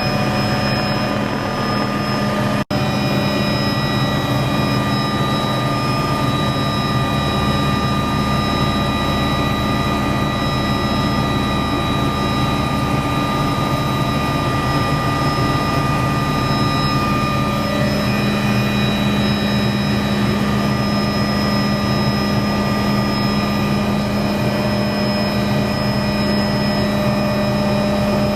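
Steady engine drone holding several unchanging tones over a rushing noise, with a very brief dropout about two and a half seconds in.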